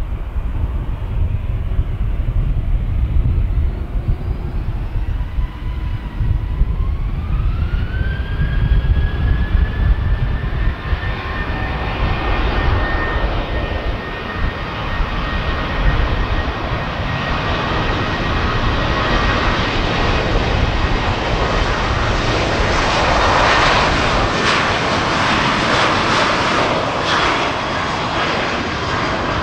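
Twin CFM56 turbofan engines of a Boeing C-40C jet spooling up to takeoff power. A whine rises in pitch for a few seconds and then holds as a steady high tone over the engine noise. The engine noise grows louder and fuller later on as the jet rolls down the runway toward the listener.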